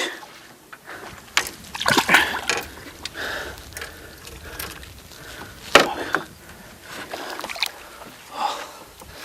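Water splashing and sloshing in several irregular bursts.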